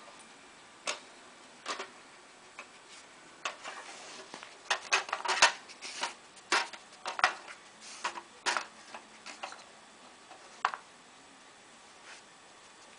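Hard plastic cones of a Dogit sliding treat puzzle clicking and knocking against the board as a fox noses them around to uncover treats. Irregular sharp clacks, a busy run in the middle, thinning to a few near the end.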